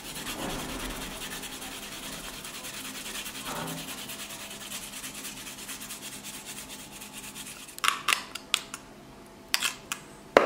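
Garlic cloves being grated on a flat metal rasp grater: a quick, steady run of rasping strokes. About eight seconds in the grating stops and a few sharp metal clinks follow as a spoon scrapes the grater.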